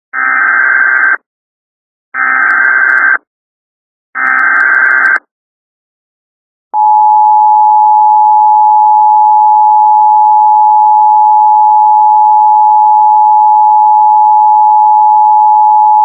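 Emergency Alert System tones: three one-second bursts of the SAME digital header warble, a second apart, then the steady EAS two-tone attention signal sounding continuously from about seven seconds in.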